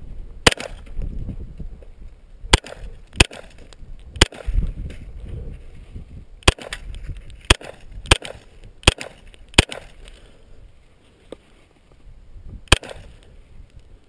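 Kel-Tec Sub-2000 pistol-caliber carbine in .40 S&W firing about ten single semi-automatic shots at an uneven pace, some in quick pairs and others up to three seconds apart.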